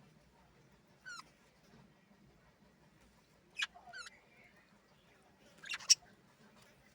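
Small birds chirping: a handful of short, sharp calls spaced through a quiet stretch, the loudest near the end.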